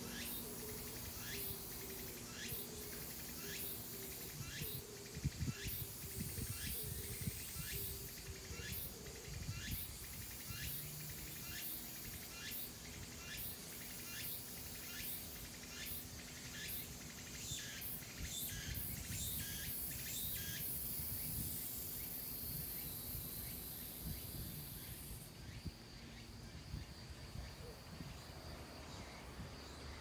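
Insects calling in woodland. A chirping call repeats about twice a second for the first twenty seconds, and a high buzzing starts under it and cuts off suddenly about 25 seconds in. Wind rumbles on the microphone throughout.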